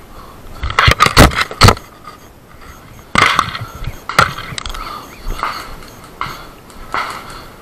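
Loud knocks and rattles of tactical gear bumping against a body-worn camera while walking, a quick cluster of sharp knocks about a second in, then single knocks or crunches about once a second that get fainter.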